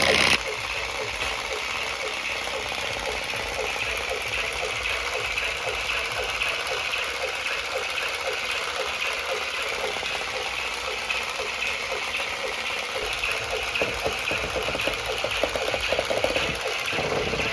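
Battery-powered vibrating toy assault rifle running, its motor buzzing steadily with a fast, even rattle as it shakes and dances. A louder sound cuts off suddenly just at the start.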